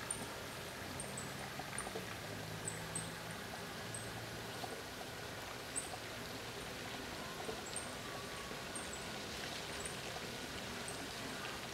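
Outdoor ambience: a steady hiss of background noise with many brief, high-pitched chirps scattered throughout, and a faint low drone during the first half.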